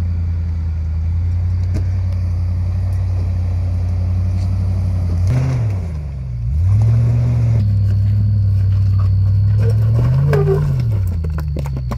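Land Rover Discovery 2 engine running at low revs while crawling over rocks. About halfway the revs dip and pick up again, and near the end they rise briefly and fall back.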